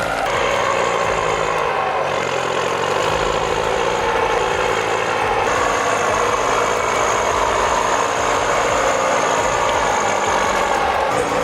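Heavy truck engine running steadily under load, with a thin high whine over it.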